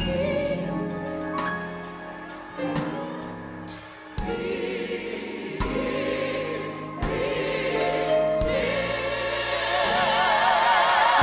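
Gospel mass choir singing sustained chords, growing louder in the second half, the voices wavering with wide vibrato.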